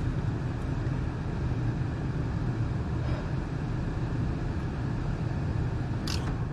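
Furnace running with a steady low hum while a call for heat waits for the burners to fire. A short click comes near the end.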